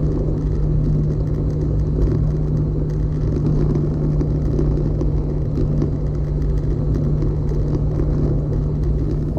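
Vehicle driving at a steady speed: an even engine drone with a constant low hum and a rumble of tyres on an unpaved road.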